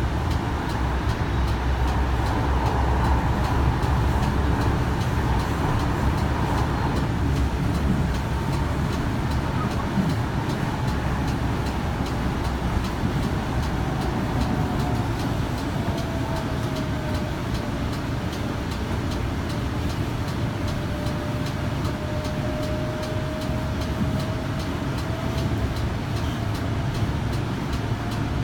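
Interior of a Kinki Sharyo light rail vehicle running at speed: a steady low rumble of steel wheels on rail, with a faint thin whine from the AC traction motors that slides lower about halfway through and then holds steady.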